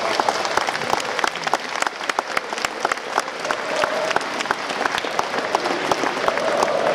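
Football crowd in the stands clapping: many sharp hand claps over the crowd's din, with chanting starting up again faintly near the end.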